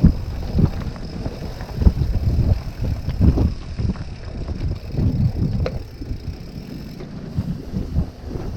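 Wind buffeting the microphone of a camera riding along on a moving bicycle: an uneven, gusty low rumble.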